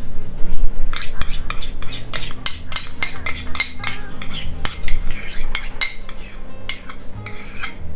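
Metal spoon scraping and clinking against a small ceramic bowl as melted butter is scraped out onto potatoes. The sharp clinks come quickly and unevenly, starting about a second in.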